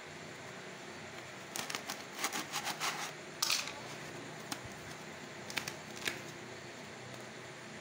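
White foam pieces being handled and worked with a craft knife, giving bursts of crackly rustling and clicks: a cluster from about one and a half to three and a half seconds in, and a few more around six seconds.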